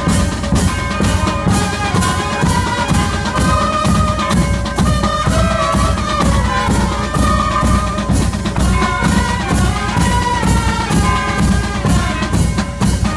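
Street brass band playing a march: bass drums and side drums keep a steady march beat of about two strokes a second, with hand cymbals clashing, under a brass melody.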